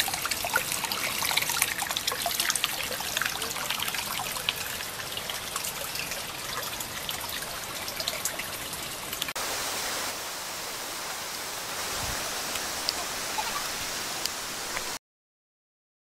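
Water trickling and splashing, with many small drips. About nine seconds in it changes abruptly to a steadier hiss, then cuts off to silence shortly before the end.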